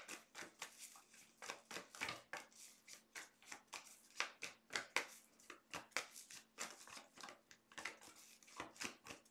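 Deck of tarot cards being shuffled by hand, overhand style: soft, irregular slaps and flicks of cards falling onto the pack, several a second.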